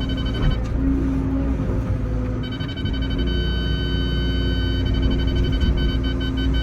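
Tracked excavator's diesel engine running with a steady low rumble and a constant high-pitched whine. The whine drops out for about two seconds, starting about half a second in, while a lower hum comes up.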